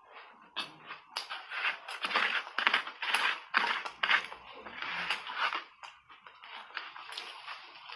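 Refrozen block ice crunching in dense crackling crunches as it is bitten and broken up, loudest from about two to five and a half seconds in and softer near the end.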